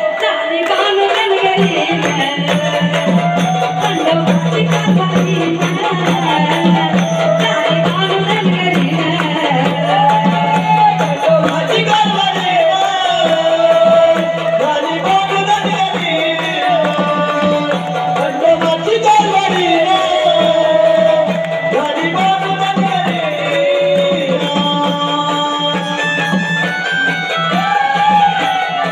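Gondhal devotional folk music: a voice sings a winding melody over a low steady drone and continuous hand-drum and rattle-like percussion.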